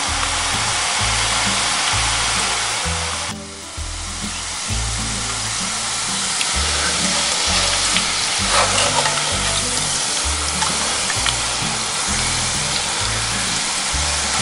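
Spiral-cut potatoes deep-frying in a pot of hot oil: a steady, dense sizzle with scattered crackles, dipping briefly a little after three seconds. Background music with a steady bass line runs underneath.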